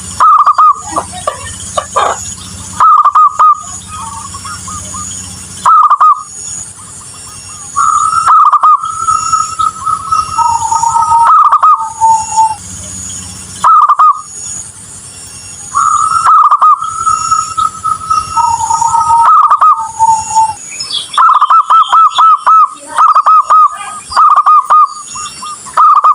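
Zebra dove (perkutut) cooing: repeated rolling coo phrases, two of them ending on a lower held note. The sound cuts out abruptly for brief moments several times.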